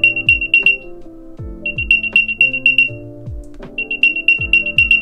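Apple AirTag's built-in speaker playing its locate alert, set off from the phone's Find My app: bursts of rapid high beeps, each about a second long, repeating roughly every two seconds. Background music with a steady beat plays underneath.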